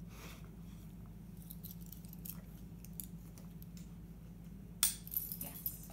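Dog collar's metal hardware jingling and clicking as the collar is worked on around a dog's neck, with a sharp clink about five seconds in followed by a few lighter jingles. A steady low hum runs underneath.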